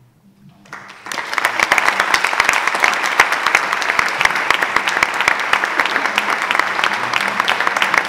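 Audience applause: dense, steady hand clapping that swells in about a second in and holds loud throughout.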